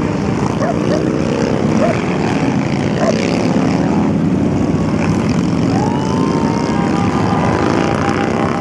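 Engines of large cruiser and touring motorcycles running as they ride past one after another in a steady procession, a loud continuous low drone with pitch sliding as each bike goes by. About six seconds in, a rising whine comes in and holds.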